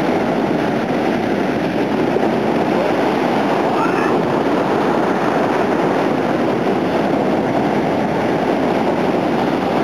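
Surf breaking and washing up onto a sandy beach: a loud, steady rush of waves.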